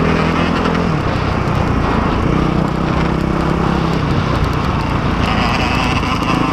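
Dirt bike engine running on a trail ride, its note dropping about a second in and picking up again about two seconds in as the throttle changes.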